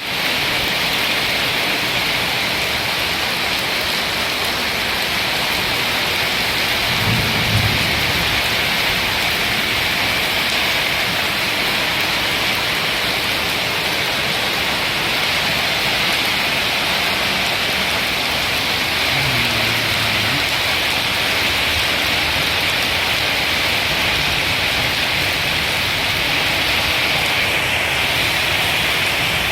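Rain falling steadily, a loud, even hiss that stays unbroken throughout.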